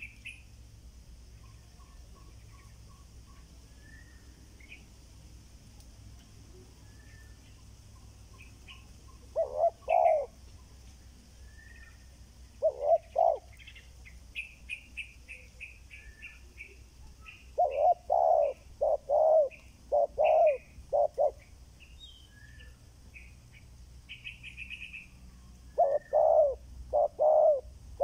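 Spotted doves cooing in repeated phrases of several notes, in bouts about ten seconds in, around thirteen seconds, over several seconds past the middle, and again near the end. Small birds chirp faintly and high in between.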